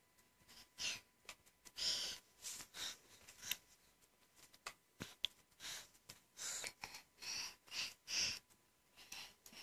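Faint, short breathy puffs repeated irregularly, about one a second: a person's quiet breathing and sniffing close to the microphone.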